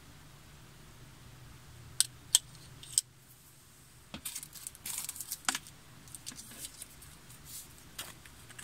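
A small plastic packet crinkling as it is handled, in two spells of crisp crackling, preceded by three sharp clicks.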